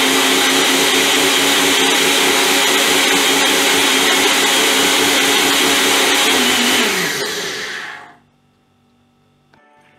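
Nutri Ninja 900-watt single-serve blender motor running steadily as it blends banana and almond milk into a smoothie, run by holding the cup pressed down on the base. About seven seconds in the cup is let go and the motor winds down, falling in pitch and stopping about a second later.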